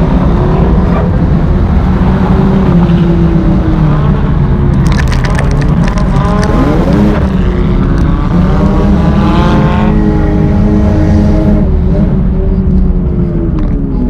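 Race car engine running hard during an enduro demolition derby race, its pitch falling and rising as it lets off and accelerates through the laps. A run of sharp clicks comes about five seconds in.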